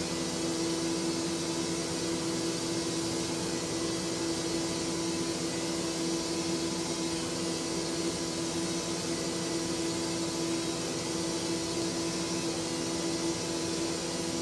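A steady machine hum with a constant low tone, unchanging throughout.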